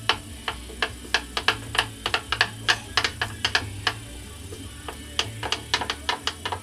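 Wax crayons clicking against a wooden tabletop and against each other as children pick through a loose pile and color: an irregular run of sharp little clicks, several a second.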